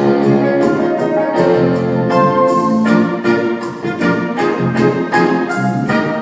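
Instrumental orchestral show music from a stage-musical cast recording, without singing, with accented chords on a steady beat.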